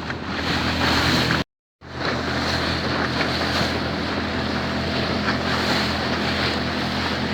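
Small fishing boat's motor running steadily under way, with wind buffeting the microphone and water rushing past the hull. The sound drops out completely for a moment about a second and a half in, then carries on unchanged.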